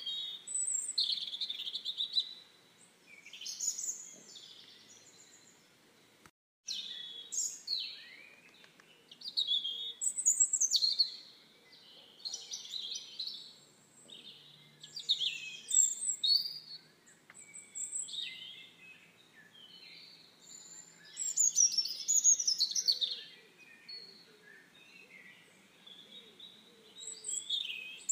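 Small birds singing and chirping, a string of short high calls and trills coming in clusters every second or two, with a brief break in the sound about six seconds in.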